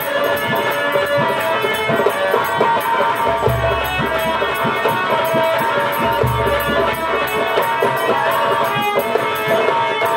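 Traditional Indian folk-theatre music: quick hand-drum strokes under steady held melodic tones, with a few deeper drum thumps.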